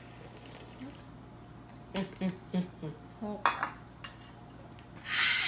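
A spoon clinking and knocking against a ceramic soup bowl several times while eating, then a short hissing noise just before the end.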